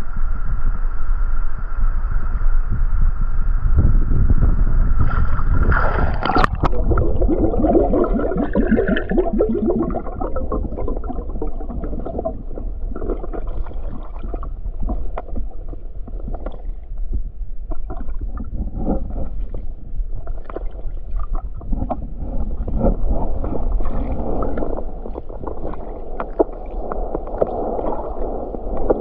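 River water gurgling and sloshing around a camera held at and then under the surface, muffled, with scattered small clicks and knocks. About six seconds in there is a sharp click and the sound turns duller, as heard underwater.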